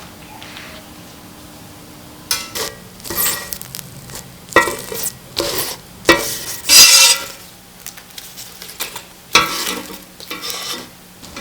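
A utensil stirring and scraping in a pan in a series of irregular strokes, starting about two seconds in, with some sizzling of frying food.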